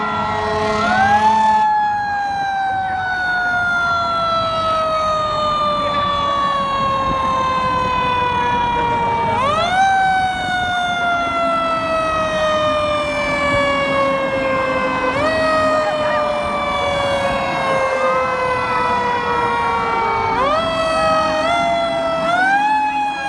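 Fire truck siren sounding repeatedly. Each time it swoops up quickly, then winds slowly down in pitch over five to ten seconds, the coast-down typical of a mechanical siren. It rises again about a second in, near ten seconds, at fifteen, and again near twenty and twenty-three seconds.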